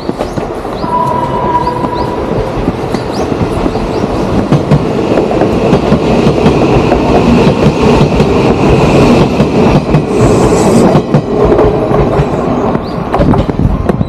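Odakyu 1000 series electric train passing close by on the Hakone Tozan line. Its wheels clatter over the rail joints, building to loudest in the middle, with a thin high wheel squeal along the way.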